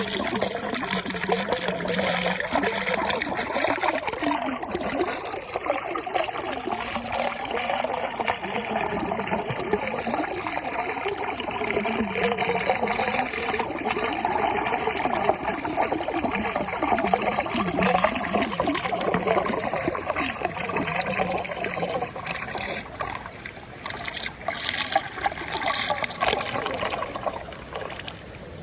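Running water trickling and babbling steadily, like a small stream in full flow.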